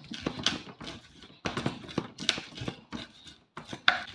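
Wooden pestle (ulekan) pounding red chilies and garlic in a wooden mortar (cobek): a run of dull wooden knocks, about three a second, with a short pause about three and a half seconds in.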